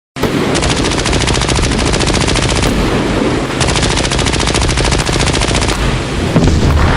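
Machine-gun fire in two long, rapid bursts over a constant low rumble of battle, with the low rumble growing louder near the end.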